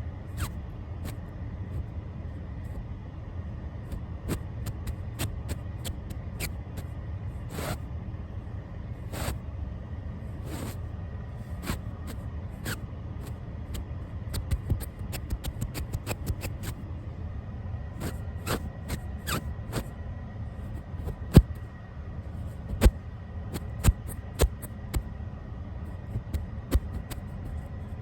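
Brush bristles stroked against a camera right at its microphone: a steady low rumbling, scratchy brushing noise with scattered clicks and taps, and a few louder sharp knocks in the last third.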